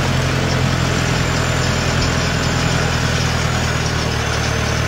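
Tractor engine running steadily as it tows a farm trailer at a slow pace.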